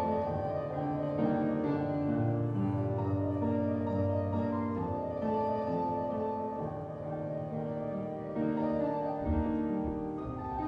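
Grand piano played solo: a slow piece of sustained chords over low bass notes.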